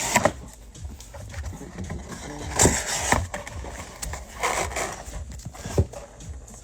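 Cardboard boxes scraping and knocking against each other as tightly packed hobby boxes are forced out of a cardboard case, with several sharp knocks among the rubbing.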